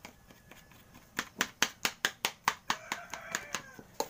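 A metal spoon clinking against a ceramic plate as it presses and crushes grilled eggplant. The sharp taps start about a second in and come about five a second.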